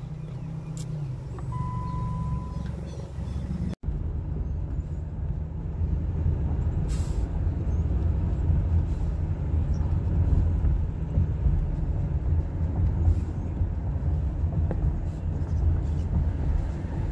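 Wind buffeting and road noise in an open-top convertible on the move: a steady low rumble, with a brief dropout about four seconds in.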